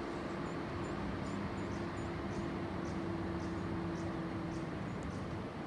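Outdoor background ambience: a steady hum with a low droning tone that stops near the end, and faint high chirps repeating two or three times a second.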